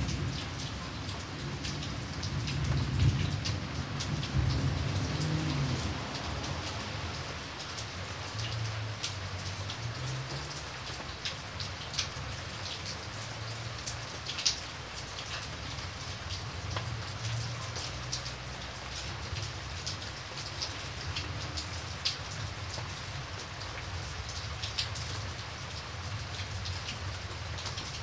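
Steady heavy rain with scattered sharp drop ticks. A low rumble of thunder dies away over the first several seconds.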